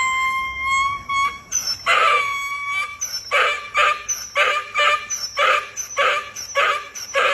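A dog gives a drawn-out howl for about the first second, then from about two seconds in a steady string of short, pitched howling calls, roughly two a second.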